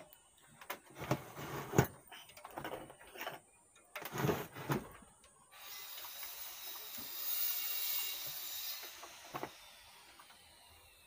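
Clicks and rustles of hands handling multimeter test probes and wires on an open power amplifier's chassis, with a sharp click about two seconds in. Then a rushing noise swells over a few seconds and fades away.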